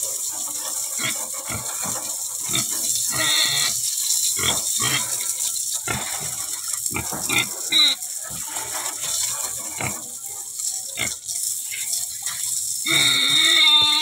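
Pig grunting, many short grunts one after another.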